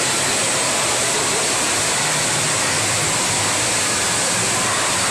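Steady rushing-water noise of an indoor water park, with no distinct splash or voice standing out.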